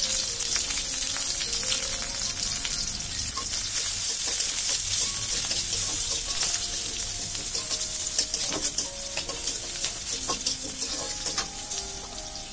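Chopped onion and slit green chillies frying in hot oil in a pan: a steady sizzle full of fine crackles.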